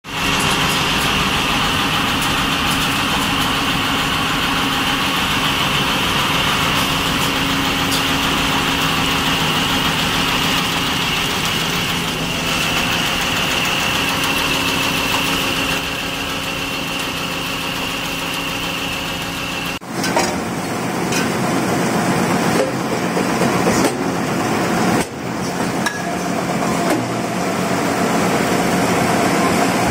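Automatic paper straw packaging machine running: a steady mechanical hum with a high whine over it. About 20 s in it gives way to another machine on the line, running with a lower hum and scattered clicks.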